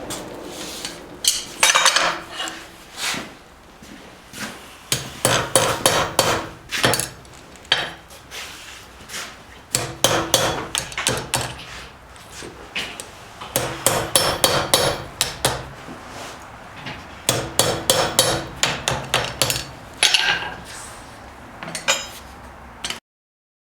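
Blacksmith's hammer striking steel on an anvil in quick runs of blows, with a metallic ring between strokes; the sound cuts off abruptly near the end.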